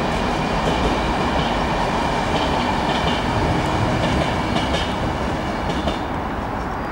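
Diesel-hauled Enterprise passenger train (Irish Rail 201 Class locomotive with coaches) running over a concrete viaduct: a steady rumble of wheels on rail with scattered light clicks, easing slightly near the end.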